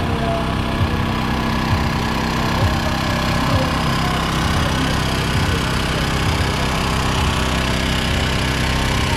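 Busy street ambience: a steady engine-like hum under a murmur of people, with irregular low thumps.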